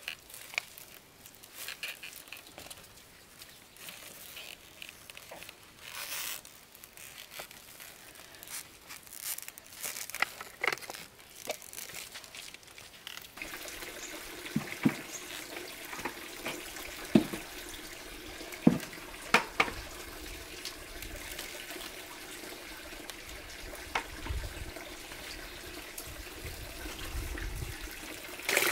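Water trickling and splashing, with scattered light knocks and clicks. A steady run of water sets in about halfway through.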